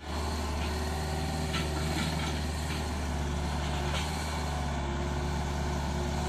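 Komatsu PC45 mini excavator's diesel engine running steadily as the machine travels forward on its crawler tracks.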